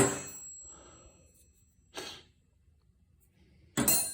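Steel wrenches clinking and clattering against each other in a tool box drawer. The ringing dies away in the first second, a short soft sound comes about two seconds in, and a fresh run of sharp metal clanks begins near the end.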